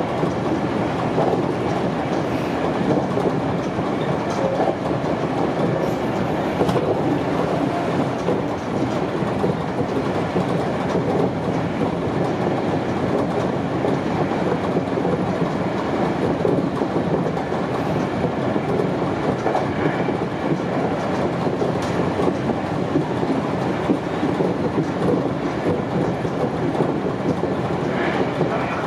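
Sanyo Electric Railway 5000 series electric train running at speed, heard from just behind the driver's cab: a steady noise of wheels on rail, with a clickety-clack over the track.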